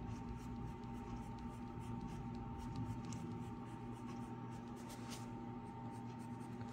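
Graphite pencil scratching on paper in short, uneven strokes, over a steady hum.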